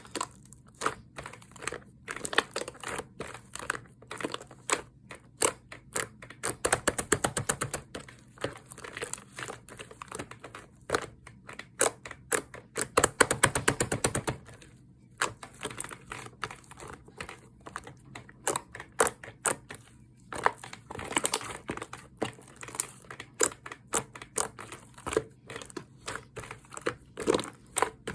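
Slime being squished and poked by hand, with a run of sticky clicks and small pops. It speeds up into rapid crackling twice, about seven and thirteen seconds in.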